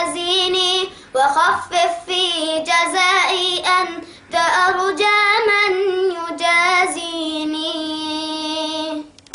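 A boy singing an Arabic devotional poem solo, without instruments, in long wavering phrases with short breaths between them. Near the end he holds one long steady note, then stops.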